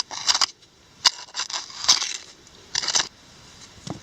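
Digging and scraping in a creek bed with a hand tool while recovering a detector target: a run of short scraping, rustling strokes with a sharp click about a second in.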